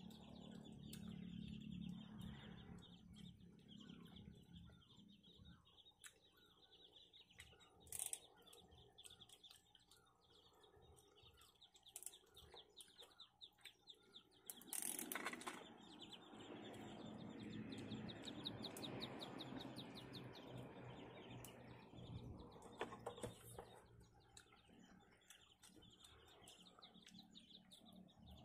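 Faint outdoor quiet with birds chirping, broken by a few sharp clicks and rustles from someone eating: a knife cutting boiled duck and handling of the meat, busiest in the middle.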